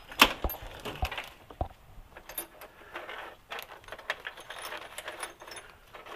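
Small metal tools and bolts clinking and rattling as they are handled and set down, with one sharp clack about a quarter of a second in and a run of light metallic clinks after.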